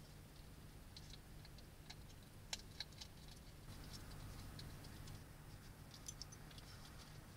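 Faint, irregular clicks and crackles of a hedgehog feeding inside a plastic hedgehog feeding house, with two sharper clicks about two and a half seconds in, over a low steady hum.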